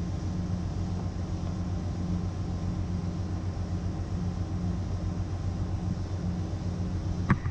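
Steady low hum of a ship's running machinery and ventilation in the engine control room, with a short knock near the end.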